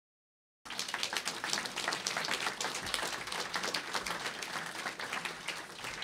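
Audience applauding, many hands clapping at once; it starts abruptly about half a second in and eases off slightly near the end.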